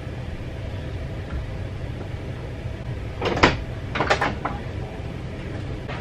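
A few short knocks or clunks from elsewhere in the house, about three to four and a half seconds in, over a steady low hum.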